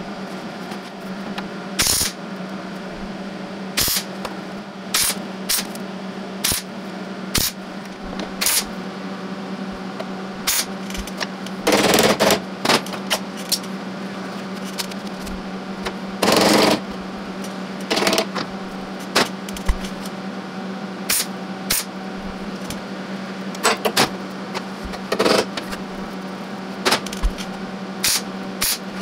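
MIG welder laying a string of short tack welds on thin sheet-steel floor and flange pieces: brief crackling bursts at irregular intervals, with two longer welds near the middle, over a steady low hum.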